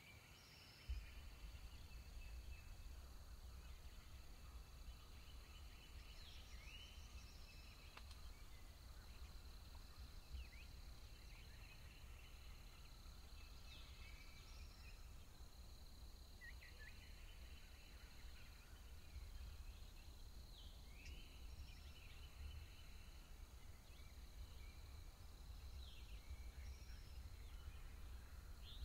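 Quiet outdoor ambience: a songbird repeats a short song, a downward-slurred note followed by a trill, every six or seven seconds. Under it runs a low rumble that starts about a second in.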